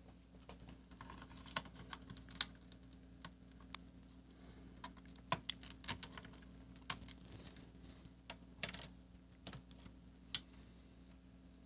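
Irregular light clicks and taps of integrated-circuit chips being worked out of their sockets on Commodore VIC-20 circuit boards with a chip puller and set down on the bench, the sharpest about two seconds in and near the end. A faint steady electrical hum runs underneath.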